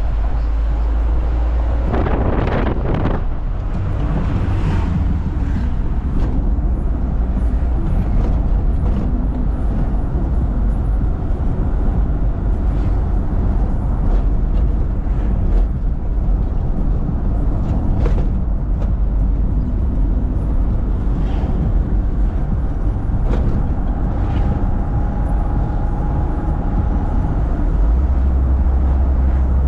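Minibus driving along a road: a steady low engine and road rumble from inside the vehicle, with a few brief knocks and rattles.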